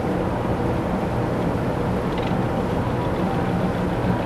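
A boat engine running steadily, a low even hum over constant background noise.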